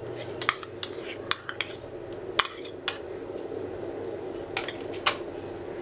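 A metal spoon tapping and scraping against a plastic bowl and a glass mixing bowl as chopped spring onion is scraped in. It makes a string of sharp clicks, most of them in the first three seconds and a few more near the end, over a steady low hum.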